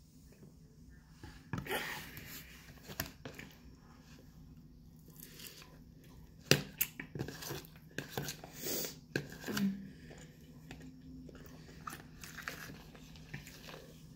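Metal spoon scraping and clicking inside a plastic food container, with chewing in between; the sharpest click comes about six and a half seconds in.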